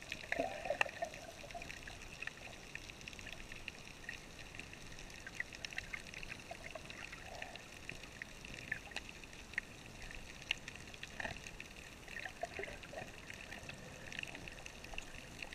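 Underwater ambience picked up by a submerged camera: a steady muffled water hiss with many scattered sharp clicks and crackles.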